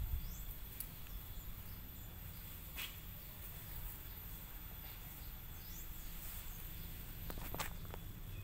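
Quiet outdoor background: a steady low rumble with faint, short high chirps scattered throughout, and a few soft clicks near the end.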